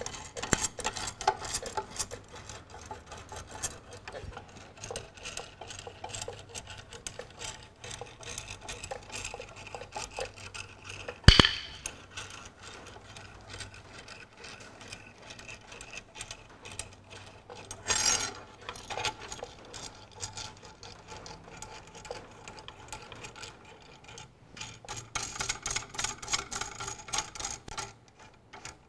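Threaded-rod bush puller turned by hand, with metal scraping and small clicks as a new king pin bush is drawn into a Ferguson tractor's front axle. There is one sharp metallic click about eleven seconds in and a softer knock about a week later at eighteen seconds.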